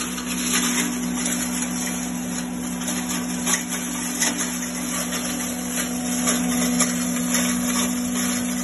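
Herb pulveriser (hammer-mill grinder) running at speed with a steady hum, with irregular ticking and knocking as dried pieces fed into its hopper are smashed up inside.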